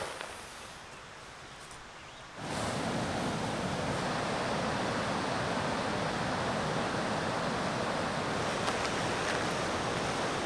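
Steady rush of whitewater from river rapids, cutting in abruptly about two seconds in after a quieter start.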